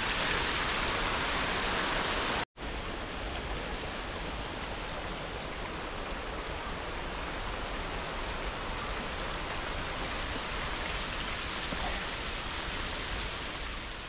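Steady rush of running water from a small mountain stream, heard close. It cuts off abruptly about two and a half seconds in and resumes quieter and duller.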